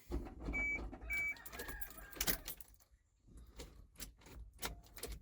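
Keys jangling and switches and fittings clicking and knocking in the cab of a dump truck whose batteries are dead, with two short high beeps about half a second apart about a second in.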